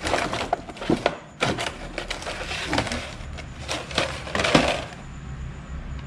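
Wooden buffet cabinet being opened and rummaged through: a run of sharp knocks, clatters and scrapes of wood that eases off near the end.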